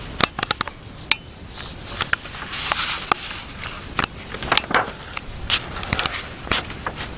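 Clothing rustling with a scatter of light knocks and clicks: a person shifting about to lie down on the floor.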